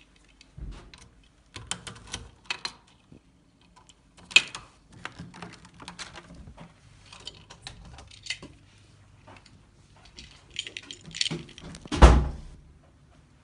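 A hotel room door being unlocked with a key and opened: scattered clicks, rattles and knocks from the key, lock and handling, with one heavy thump about twelve seconds in as the loudest sound.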